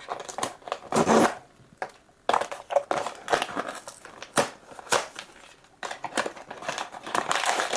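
Crinkling and rustling of blind-box packaging being handled and unwrapped, in several separate bursts with a few sharp taps and clicks in between.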